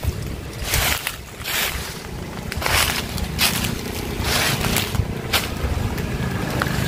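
Footsteps over rock outdoors, a short crunch every second or so, with wind on the microphone and a low steady hum underneath.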